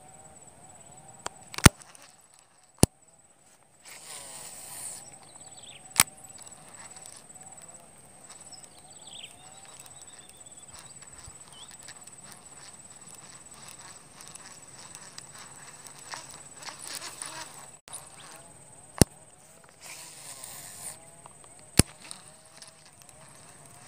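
Lure-fishing with a casting rod and reel: line whirs off the reel in two brief rushes, with a few sharp clicks. A steady high-pitched insect drone runs underneath.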